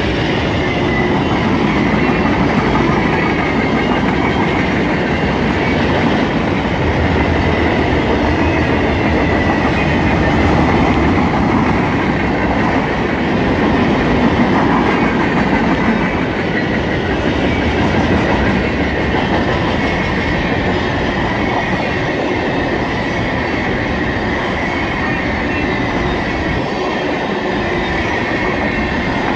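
Freight cars of a long CSX mixed freight train rolling past: a steady, loud rumble of steel wheels on the rails with a continuous clatter of wheel sets.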